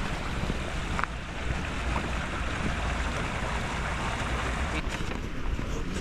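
Water running in a small stone-lined channel, a steady rushing hiss, with low wind rumble on the microphone.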